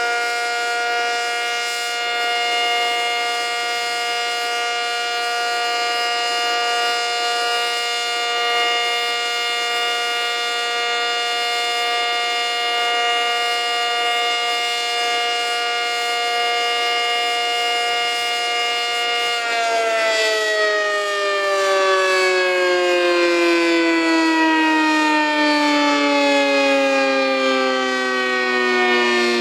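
ACA Cyclone 125 outdoor warning siren sounding a steady two-tone chord, then winding down from about two-thirds of the way in, its pitch falling steadily.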